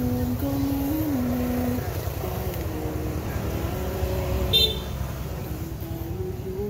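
Background music: a simple stepping melody over a steady low rumble, with a brief high chirp about four and a half seconds in.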